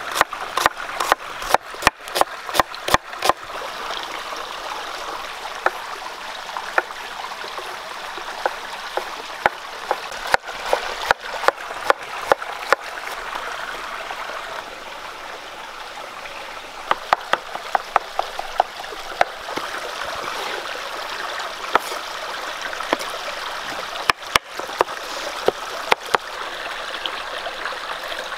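Knife chopping onion on a wooden cutting board in runs of quick sharp taps, a few a second, starting and stopping several times. Under it, a stream of running water.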